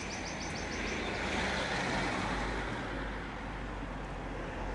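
A 1949 AC 2 Litre on the move: steady engine and road noise, swelling slightly about a second and a half in.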